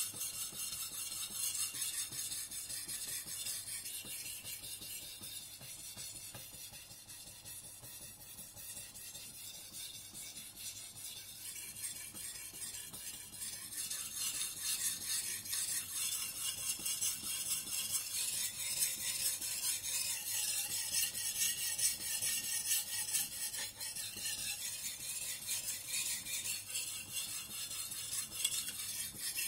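Shirogami #1 carbon-steel gyuto blade being stroked back and forth on a wet Suehiro New Cerax #800 whetstone: a steady scraping hiss of steel on stone, softer for several seconds in the middle.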